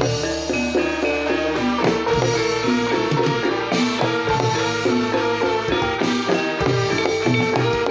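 Javanese gamelan music for a jathilan dance, played live and loud over a sound system: fast pitched metallophone notes over drumming.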